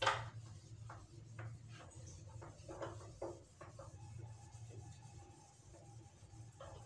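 Whiteboard being wiped with a felt duster: a short series of separate rubbing strokes across the board, opening with a sharp knock, over a steady low hum.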